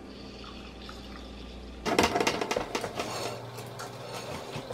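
A handheld milk frother whirring steadily in a drink for about two seconds, then loud clattering of cutlery and small objects as a kitchen drawer is rummaged through.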